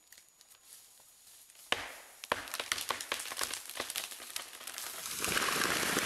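Large tree giving way at the felling cut: a sharp crack of splitting wood not quite two seconds in, then a run of irregular cracking and popping fibres as the trunk tips. Near the end a louder rush of breaking and swishing branches sets in as it falls.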